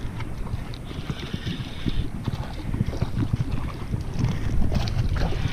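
Wind buffeting the microphone, with light splashing and crackle at the water's edge as a hooked small speckled trout is brought in to the rocks.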